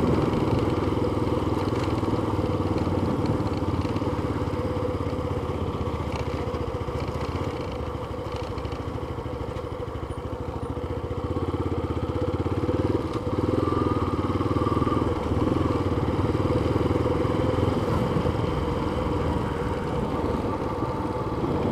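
Yamaha FZ25 motorcycle's single-cylinder engine running as the bike rides slowly along, heard from a camera on the bike. It eases off for a few seconds near the middle and picks up again a little past halfway.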